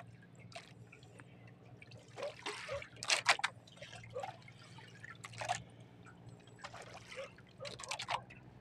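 Water dripping and trickling, with a few sharp clicks and taps in the middle and near the end, over a faint steady low hum.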